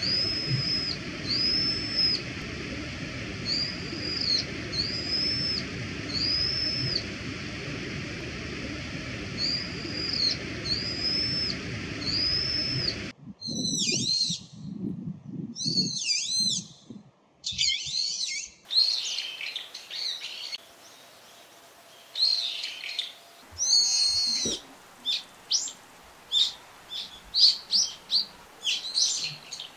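Brown-eared bulbuls calling: first a run of loud, arched whistled notes repeated about once a second over steady background noise, then after a cut harsher, more complex squealing calls, and finally a quick string of short shrill notes.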